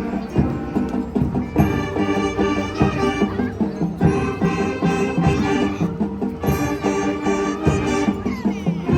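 Elementary school wind band playing, brass and woodwinds holding chords that change every second or two, with drum strokes underneath.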